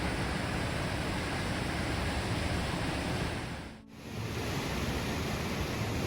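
Steady rushing of a mountain waterfall. About four seconds in it dips away for a moment and returns.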